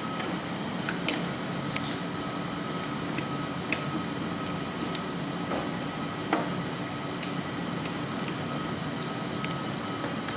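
Light clicks and taps of plastic tubing and fittings being handled and pressed into holders on a heart-lung machine, a few scattered strokes over a steady background hum with a faint high tone.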